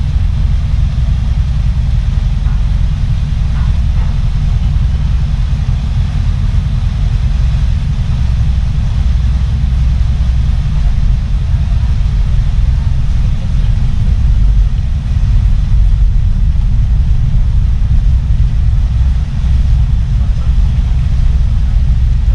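Steady, loud low rumble of a ferry under way, its engines and propellers churning a wake at the stern, mixed with wind buffeting the microphone.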